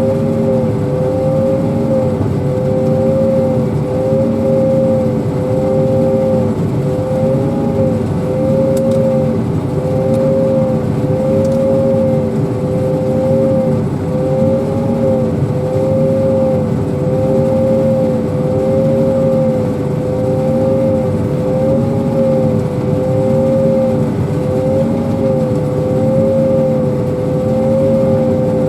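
Self-propelled pea viner's engine and threshing machinery running steadily under load, with a regular wavering in pitch a little slower than once a second.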